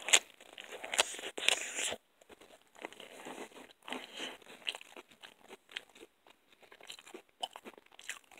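Close-up chewing and crunching of pizza crust: a cluster of louder crunches in the first two seconds, then quieter, scattered chewing clicks.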